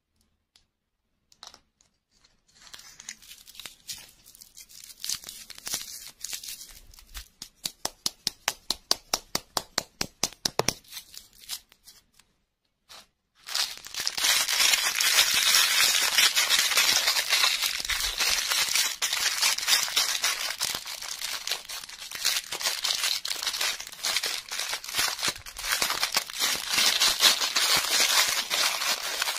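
Clear plastic wrapper crinkling and tearing as hands unwrap it, loud and continuous through the second half. Before that come softer crinkling and a run of quick ticks, about four a second.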